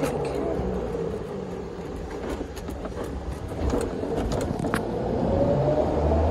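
Club Car golf cart driving, its drivetrain whine sinking in pitch and then climbing again near the end over a steady low rumble, with scattered rattling clicks.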